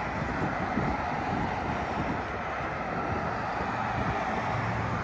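Steady hum of road traffic, with wind buffeting the microphone.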